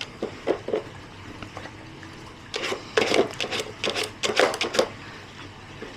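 A dog rummaging in a treat puzzle box: irregular scraping, rubbing and light knocks as it noses and paws the pieces, busiest in the second half.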